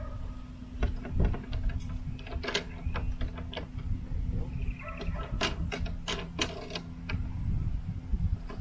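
Irregular plastic clicks, taps and rattles from handling a lawn mower's handle and its control cable, as the cable is worked into clips along the handle. A steady low hum and a low rumble run underneath.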